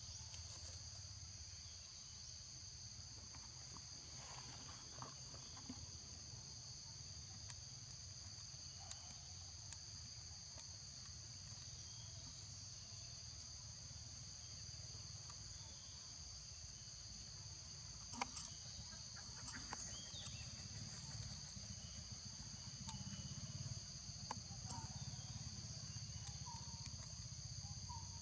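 A steady, high-pitched chorus of insects, a continuous buzz at two pitches. A few faint clicks and short chirps come in during the second half.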